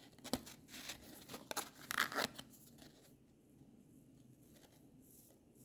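Rustling and scraping of a cardboard trading card being handled by hand, a quick run of short noises over the first three seconds that then dies away.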